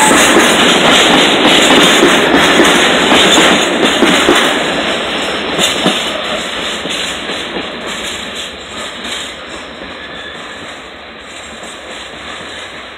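A train passing close by at speed, loud for about the first four seconds and then fading steadily as it moves away.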